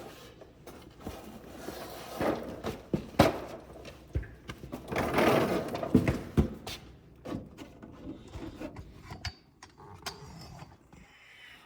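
Scattered clicks and knocks with stretches of rustling, the sounds of handling and moving about.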